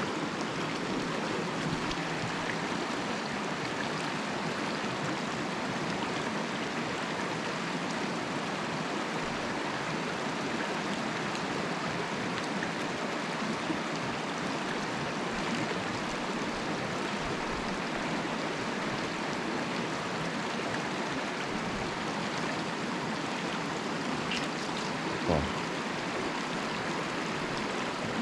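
Mountain stream water rushing steadily over rocks, with one short knock near the end.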